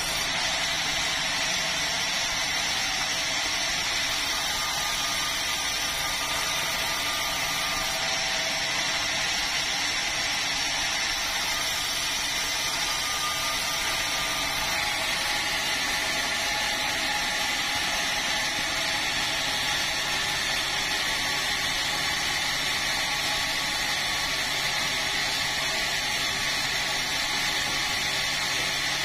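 Power saw running steadily as it cuts through a red meranti log.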